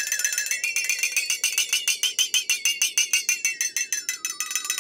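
Cartoon 'seeing stars' dizzy sound effect: a quick, even run of high tinkling, bell-like strikes over a wavering tone that dips near the end.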